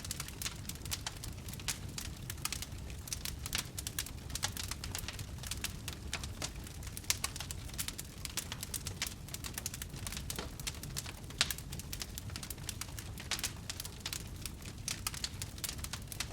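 Fire burning, with a continuous stream of sharp crackles and pops over a low, steady noise.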